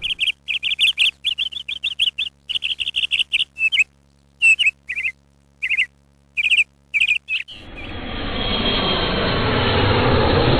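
A bird chirping in quick runs of short, high notes with pauses between them, cutting off abruptly about seven and a half seconds in. A loud rushing rumble then swells up and carries on.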